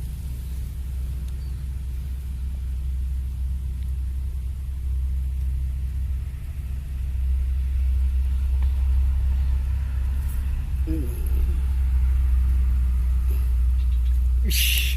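Steady low rumble of wind buffeting the microphone, growing stronger about halfway through, with a few short hissing bursts near the end.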